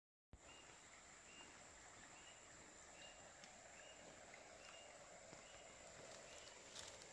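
Faint forest ambience: a steady high insect whine over a soft noise bed, with a short chirp repeating less than once a second. The sound drops out completely for a moment at the very start.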